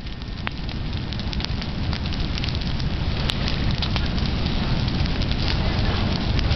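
Wildland fire burning through brush and pine understory: a steady rush of flame with many crackles and pops. It grows steadily louder as the flames build toward torching the trees.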